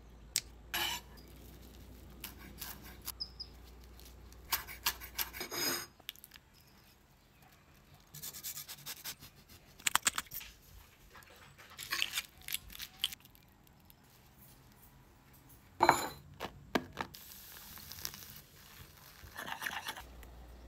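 Close-up kitchen prep sounds: sharp scissor snips through squash blossom stems, then short bursts of a utensil scraping and rubbing in a bowl.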